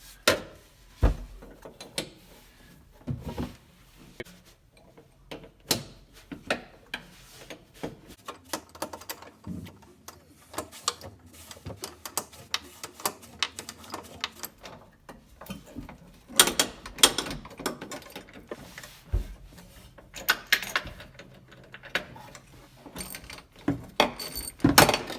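Two 15 mm wrenches clinking and clicking on metal as they work loose the nut on the brake pedal's pushrod shaft: irregular metallic clicks and knocks, coming in a few busier spells.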